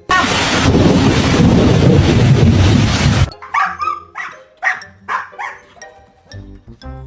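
A loud rushing noise for about three seconds that cuts off suddenly, then a dog barking about four times over background music.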